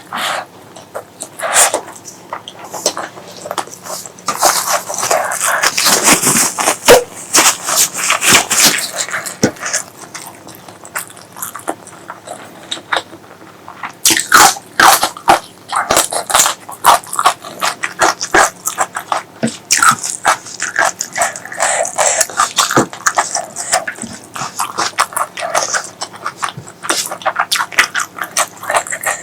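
Close-miked chewing and wet lip-smacking while eating pork leg curry with rice: a dense, irregular run of clicks and smacks, a little sparser about a third of the way through.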